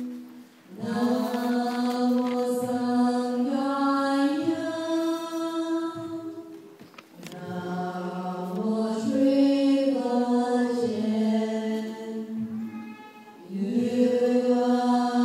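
Buddhist chanting by a group of voices in unison: a slow, melodic chant of long held notes that step up and down in pitch, sung in three phrases with short breaks between them.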